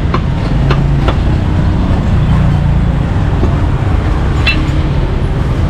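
Steady low rumble of street traffic, with a few sharp knocks scattered through it.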